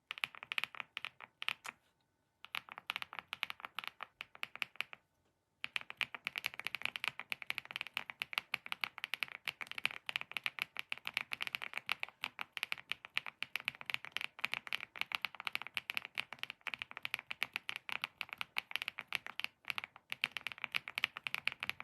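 Sustained typing on a mechanical keyboard fitted with HMX Caramel Pudding linear switches: a fast run of keystroke clacks with a muffled, mid-pitched, mahjong-tile-like sound, pausing briefly twice in the first six seconds.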